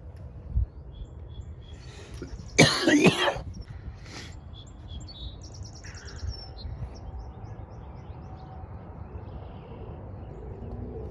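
A person coughing hard in a short fit of two or three coughs, about two and a half seconds in. Birds chirp in the background, with a quick high trill a few seconds later.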